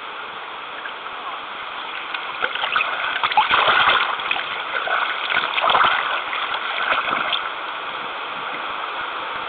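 Canoe paddle dipping and splashing in river water, a few irregular strokes loudest through the middle, over a steady hiss of moving water.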